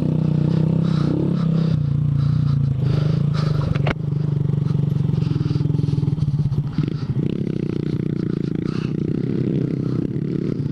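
Honda Grom's 125 cc single-cylinder four-stroke engine running steadily under throttle on a dirt trail, its note shifting a couple of times with the throttle. A single sharp knock about four seconds in.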